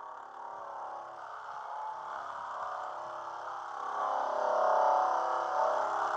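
Handheld surface conditioning sander (SCT) running steadily against the car body, getting louder about four seconds in.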